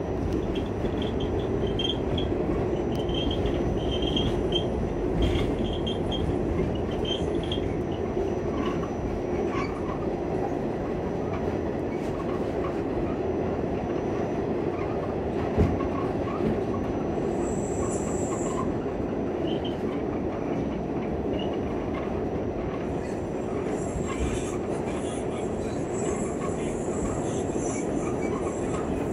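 Inside a moving R46 subway car: the steady rumble and clatter of wheels on the rails, with a high wheel squeal a little past halfway and again over the last few seconds, and a single sharp knock near the middle.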